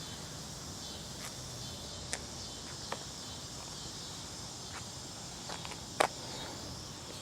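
Steady high-pitched background chirring or hiss, broken by a few short clicks, the sharpest and loudest about six seconds in.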